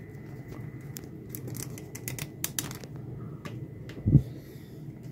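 Irregular small clicks and taps of new multimeter test probes and their packaging being handled and unwrapped, with one louder short thump about four seconds in.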